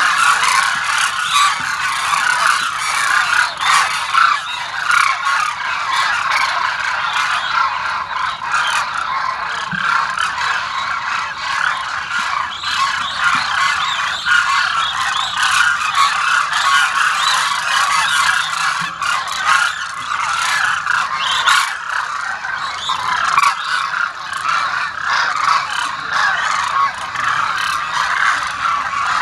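A large flock of demoiselle cranes calling together: a dense, continuous chorus of many overlapping calls.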